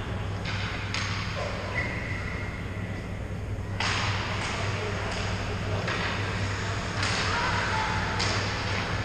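Ice rink ambience during a hockey game: a steady low hum under repeated bursts of scraping noise from skates on the ice, with faint voices echoing in the big hall.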